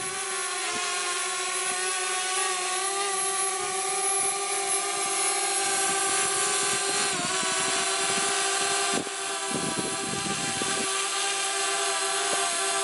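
DJI Spark quadcopter's propellers whining steadily as it holds a hover in strong wind, the pitch dipping briefly about seven seconds in as the motors correct. Wind gusts buffet the microphone with low rumbles.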